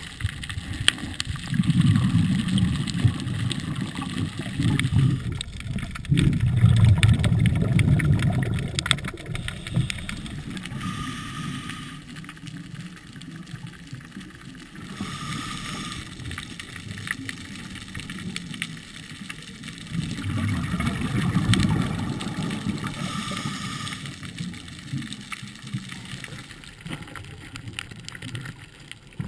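Underwater sound of a scuba diver breathing on a regulator, heard through a GoPro housing: low bubbling exhalations a few seconds long, with quieter stretches between them.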